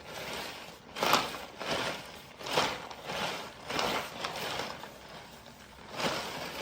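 Ice cubes and ice-cream salt crunching and rattling inside a jar as it is rolled to freeze the ice cream, in uneven swells about once a second.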